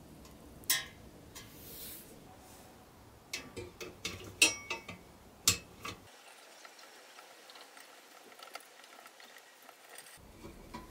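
Sharp clicks and knocks of small metal parts being handled as the chrome grille and bumper of a restored tin Tonka toy truck cab are fitted and worked with a small hand tool. There is one click under a second in, then a cluster of sharper clicks in the middle, the loudest about four and a half seconds in, and after that only faint ticks.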